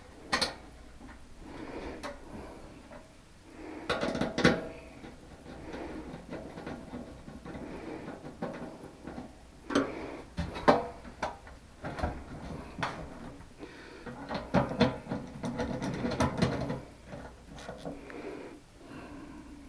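Irregular knocks, clicks and rubbing of parts and tools being handled while reassembling a central-air unit, the sharpest knocks about half a second in, around four seconds in, and several between ten and seventeen seconds.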